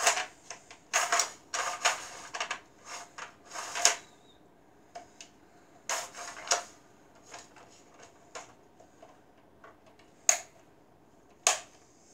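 Plastic clicks and rattles of a toy Nerf blaster being handled and loaded. They come in several short clusters with pauses between them, ending with two single sharp clacks near the end.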